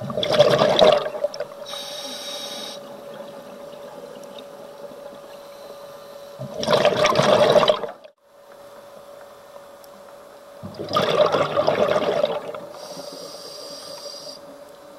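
Scuba diver breathing through a regulator underwater: three loud gushes of exhaled bubbles, at the start, about halfway and about two-thirds through, with a short hissing inhalation after the first and another near the end. A steady faint hum runs underneath.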